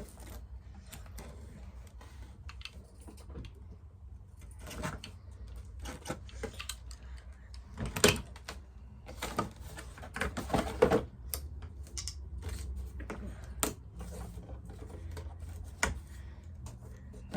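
Irregular clicks, taps and short rustles of craft materials and tools being handled on a tabletop, with a few louder knocks about eight and eleven seconds in, over a steady low hum.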